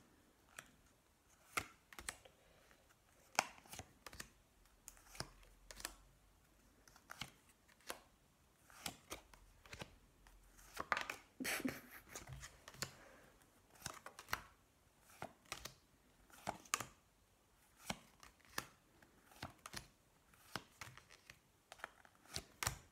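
Playing cards being turned over and slapped down one at a time onto a glass tabletop pile: short, sharp taps in quick succession, about one or two a second.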